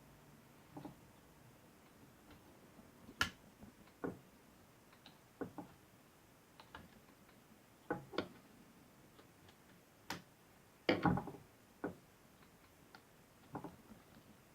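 Irregular small clicks and taps from hands and fingers working on an opened laptop, about a dozen spread unevenly, the sharpest about three seconds in and a quick cluster around eleven seconds.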